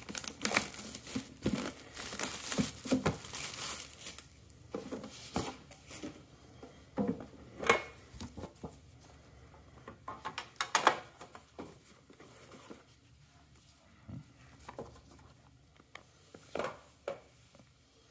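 Plastic shrink wrap being torn and crinkled off a trading-card box, dense crackling for the first few seconds. Then scattered light clicks and taps as the box is opened and its contents handled, growing sparser toward the end.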